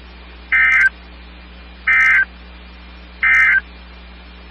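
NOAA Weather Radio SAME end-of-message data bursts: three short, shrill digital warbles, each about a third of a second long, about a second and a half apart. They mark the close of the weekly required test broadcast.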